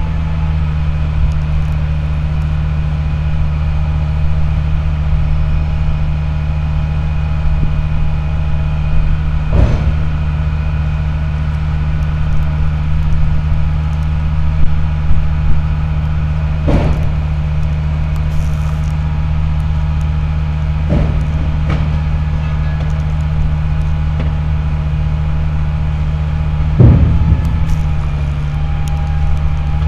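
Truck-mounted boom crane's engine running steadily to drive its hydraulics during a lift, a constant low drone. Several sharp knocks break through now and then.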